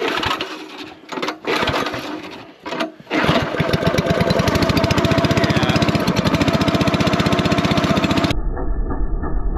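Honda 9 hp single-cylinder engine on a wood splitter being pull-started cold with the choke on: a few short bursts as the starter cord is pulled, then it catches about three seconds in and runs steadily. Near the end the sound cuts abruptly to a duller, muffled machine sound.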